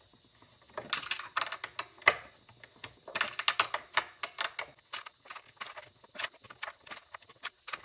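Quick, irregular clicks and small metallic taps of a hand tool turning a 4 mm Allen screw tight in a cramped spot, coming in short bursts with brief pauses.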